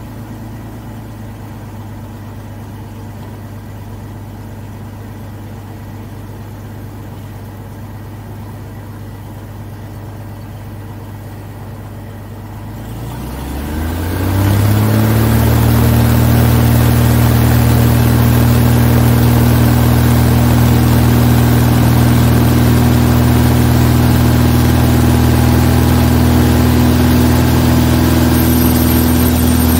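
Zlín 42's piston aero engine idling steadily, then opened up about 13 seconds in: the note rises in pitch and gets much louder, then holds steady at high power.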